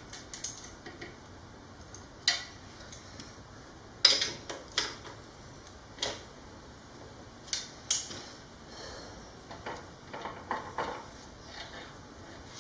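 Irregular metallic clinks and taps of hand tools and small bolts as a motorcycle exhaust is bolted on, with the loudest clink about four seconds in.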